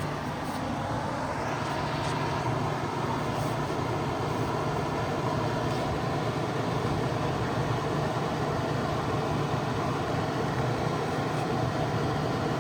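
2009 GE 5,200 BTU window air conditioner running with its fan on high: a steady rush of air from its fans with a constant low hum from the single fan motor that drives both the indoor blower and the condenser fan.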